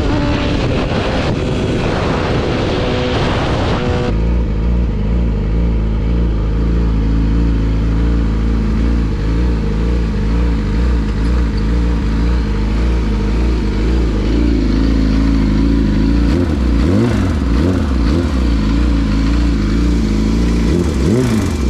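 Yamaha R6 motorcycle at speed. About four seconds in it changes suddenly to the inline-four engine running steadily at low revs, its pitch wavering near the end. The engine has spun a rod bearing and has rod knock.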